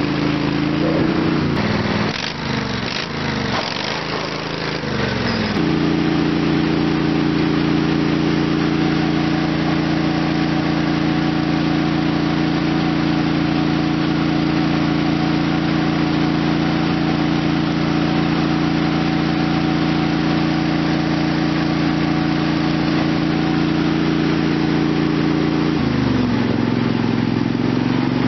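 Lawn tractor's small gasoline engine revved up and down a few times, then held steady at high speed on the hand throttle for about twenty seconds, then throttled back toward idle near the end.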